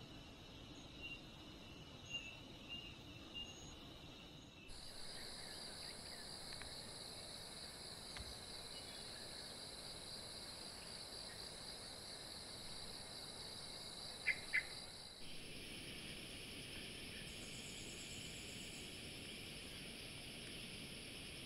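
A faint chorus of insects, buzzing and pulsing in steady high tones. The chorus changes abruptly twice, about five seconds in and again about two-thirds of the way through. Two short, sharp high chirps come just past the middle.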